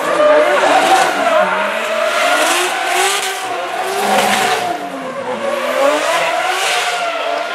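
BMW coupé drift car sliding under power: its engine revs rise and fall repeatedly, with tyres squealing.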